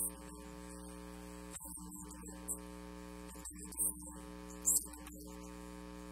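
Steady electrical mains hum, a low buzz with several overtones, with brief high hissy flares a few times.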